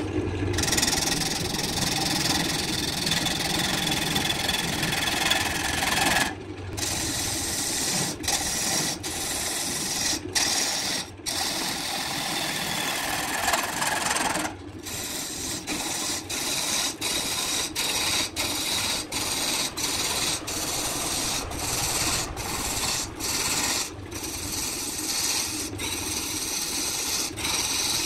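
Wood-turning gouge cutting into a spinning blank of burned wood on a wood lathe: a continuous rough shaving noise over the lathe's hum. It is broken by many short dropouts, which come more often in the second half.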